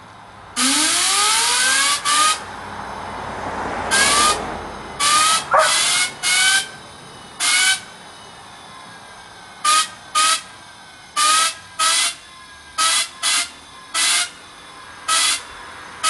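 Small AMT gas turbine jet engine spun up by short blasts of compressed air into its intake: a long first blast with a rising whine, then about fourteen shorter hissing blasts, the turbine's whine falling away between them. It does not light, because the fuel gas has been left turned off.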